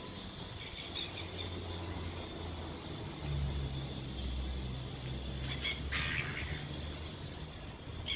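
A low steady rumble, louder in the middle, with short high bird chirps about a second in and again around five to six seconds in.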